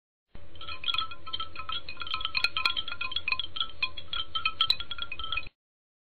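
Tinkling, chime-like high notes in quick irregular succession, with small sharp clicks among them. The sound is dubbed in: it starts abruptly about half a second in and cuts off abruptly about a second before the end, with no other sound around it.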